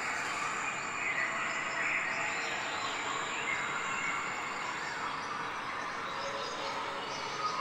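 Skateboard wheels rolling over paving stones, a steady noise from several boards moving in a line.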